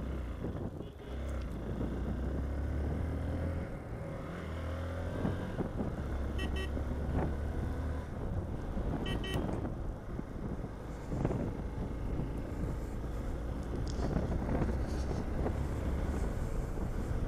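Hero XPulse motorcycle running along the road with a steady low rumble of engine and wind. Two short high beeps come about three seconds apart near the middle.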